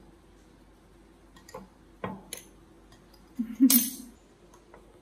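Metal spoon clinking and scraping against porcelain bowls while dessert is ladled from one bowl to another: a few light clicks, then a louder clatter about three and a half seconds in.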